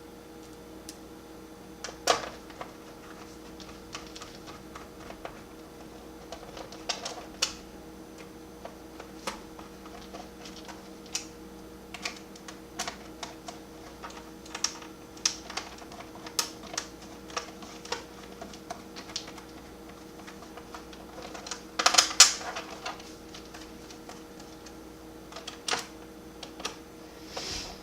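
Small Phillips screwdriver driving screws back into a laptop's plastic bottom case: scattered light clicks and ticks, with a louder burst of clatter about 22 seconds in.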